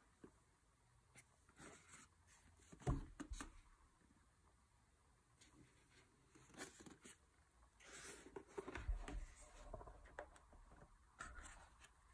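Faint handling of a rigid cardboard box: scattered taps and rubs of fingers on the box, with a knock about three seconds in and a longer scraping rustle around eight to nine seconds in.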